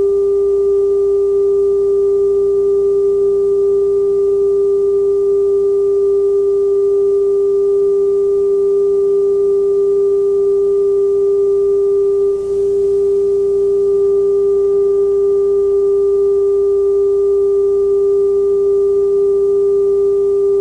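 Television test-pattern tone: a single steady pure tone held without change, with a brief dropout about twelve seconds in.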